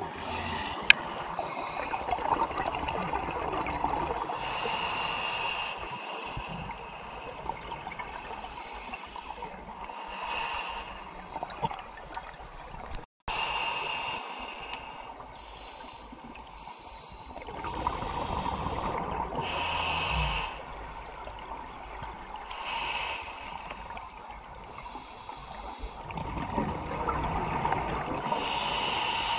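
A scuba diver breathing through a regulator underwater: a hissing inhalation every four to five seconds, with exhaled bubbles between them. The sound drops out for a moment about halfway through.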